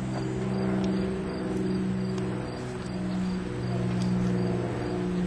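A steady low droning hum, with a few tones that swell and fade in turn. Over it a cricket chirps faintly and evenly, about four times a second.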